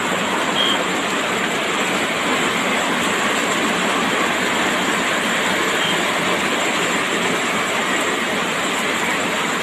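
Heavy rain pouring down steadily, splashing onto the flooded ground and puddles.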